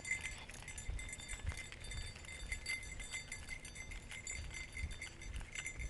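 Night insects chirping in a steady, pulsing high chorus, with scattered faint ticks and low thumps, like movement or handling near the microphone.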